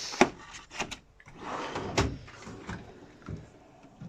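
Metal tool chest drawer sliding on its runners, with several sharp knocks and clunks as it is opened and shut.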